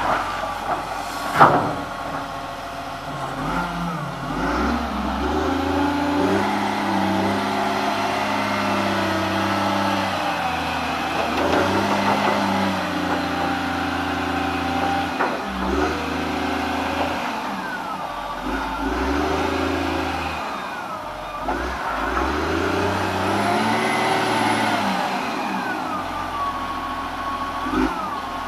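Cat 950G Series II wheel loader's diesel engine revving up and dropping back again and again as the machine drives and works its bucket, with a whine that slides up and down in the later part. A sharp bang about a second and a half in is the loudest moment.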